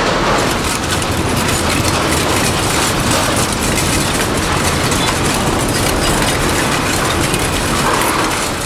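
Industrial scrap-metal shredder running: a loud, steady mechanical din with dense, continuous rattling and clattering of metal pieces.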